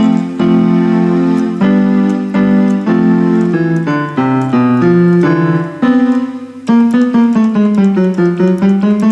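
Yamaha PSR-E423 digital keyboard playing held chords and notes in a piano-like voice. In the second half, quick repeated notes slide down in pitch and back up, bent with the keyboard's pitch bend wheel.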